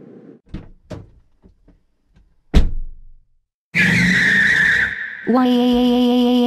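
Sound effects of a car: a few light knocks and one loud thump, then a car pulling away with a screech of tyres, followed by a steady engine drone.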